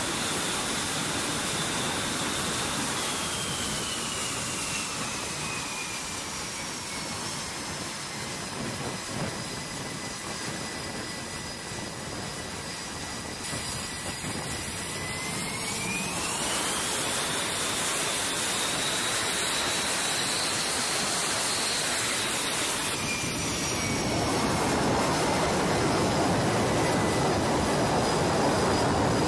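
F/A-18 fighter's jet engines running with a loud, steady roar and a high turbine whine. The whine drops in pitch early on, climbs again about halfway through, then drops once more, and the roar grows louder near the end.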